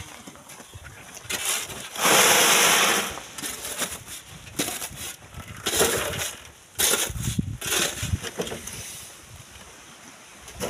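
Sand-mining work in sand and stone: scattered knocks and scrapes, with a loud rush of noise about two seconds in lasting about a second.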